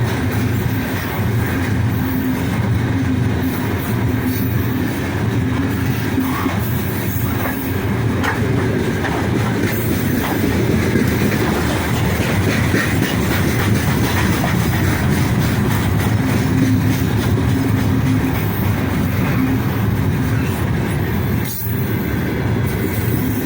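Freight train rolling past at speed: a steady, loud rumble of steel wheels on the rails, with some clatter and a recurring humming tone.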